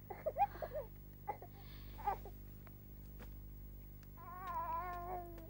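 A baby's voice: a few short, high squeals in the first couple of seconds, then one longer, wavering whine about four seconds in.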